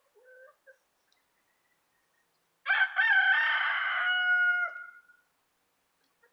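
A rooster crowing once, about two seconds long, ending on a steady held note. A few faint, short bird calls come just before, near the start.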